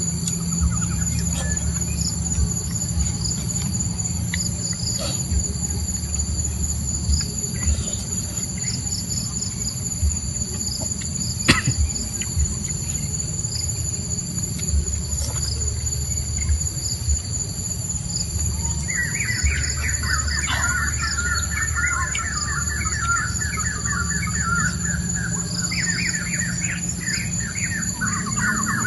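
A steady, high-pitched insect chorus of cicadas or crickets, over a low rumble with scattered clicks. From about two-thirds in, a bird gives a fast chattering trill, twice.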